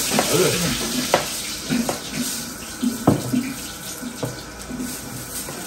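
Kitchen sounds: a steady hiss with four sharp clinks of utensils spread through.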